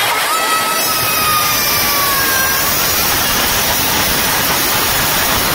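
Loud, steady rushing hiss with little bass, with a faint falling tone in the first two or three seconds.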